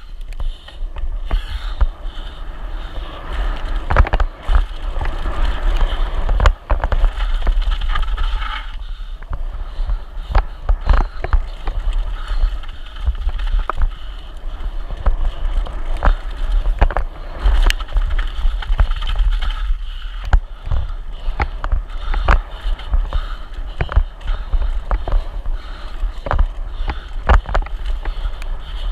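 Wind rumbling on the bike-mounted camera's microphone as a Santa Cruz Hightower full-suspension mountain bike descends a rough downhill course at speed, with tyre hiss on dirt and frequent sharp knocks and rattles as the bike hits bumps and rocks.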